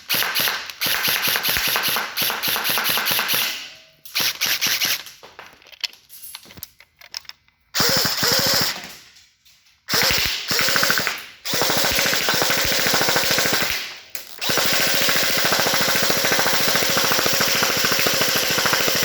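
Airsoft HK416 rifle firing full-auto in a string of bursts with short pauses between them, then one long continuous burst over the last few seconds, as tracer BBs are shot through a tracer unit on the muzzle.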